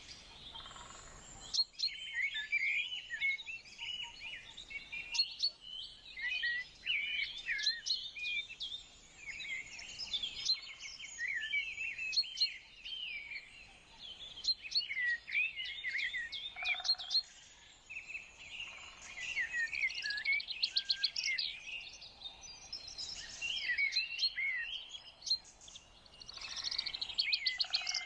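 Several songbirds singing together: a dense, overlapping run of high chirps, quick trills and twittering phrases with hardly a pause.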